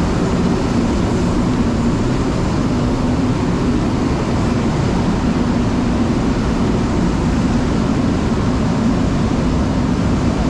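Steady machinery drone from a grain-drying and handling setup, with a constant low hum and no change in level.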